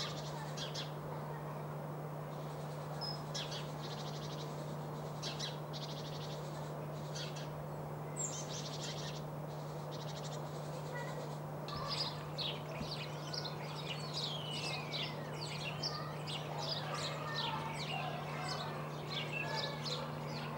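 Small songbirds singing and chirping: short high trills repeated about once a second, then, about halfway through, a busier mix of quick downward-sweeping notes from several birds. A steady low hum runs underneath.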